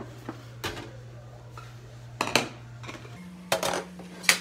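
Ceramic side-dish bowls being set down one after another from a metal tray onto a wooden table: a handful of sharp clinks and knocks, the loudest near the end.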